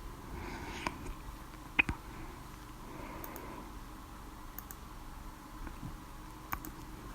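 A person hiccupping: one sharp, loud hiccup about two seconds in, with softer hiccup clicks and quiet breaths around it.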